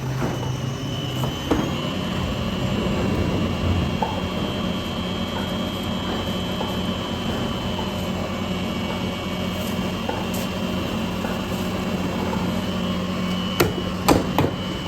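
Factory machinery running steadily: a constant hum with a thin high whine over it, and a few sharp knocks near the end.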